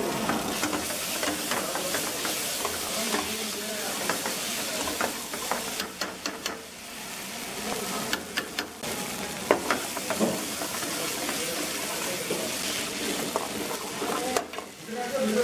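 Red masala paste frying in hot oil in a black pan, with a steady sizzle, while a metal ladle stirs and scrapes it around the pan with scattered clicks against the metal.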